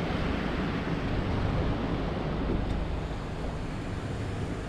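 Steady rushing noise of wind on the microphone and sea water, with a low rumble underneath.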